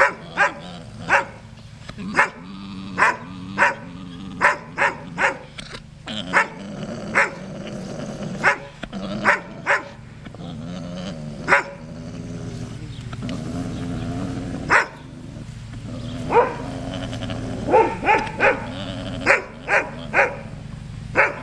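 Maremma livestock guardian dog barking over and over in irregular runs of sharp barks, with a pause of a few seconds past the middle. Under the barks runs a steady low gurgling hum from a male llama orgling, his courtship call.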